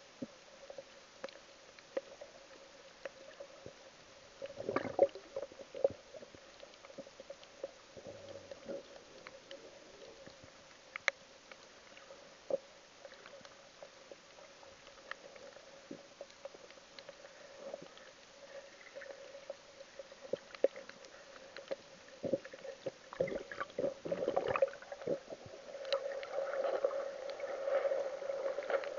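Underwater sound picked up through a camera's waterproof housing: a steady hum with scattered clicks and knocks, growing busier and louder near the end.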